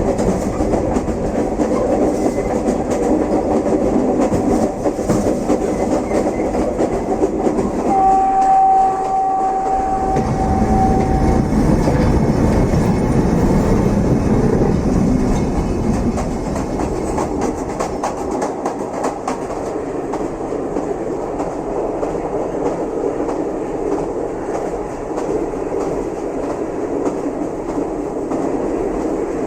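Train rolling along the track: a continuous rumble with the clatter of wheels over rail joints. About eight seconds in, a steady tone sounds over it for about three and a half seconds, and the rumble eases off somewhat in the second half.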